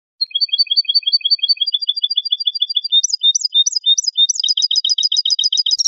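Recorded song of a European goldfinch in the Malagueño copia style: after a brief silence, a string of short, high, repeated notes. Its pattern changes twice, moving from a steady run of paired notes to a slower series of rising notes and then to a fast rattle.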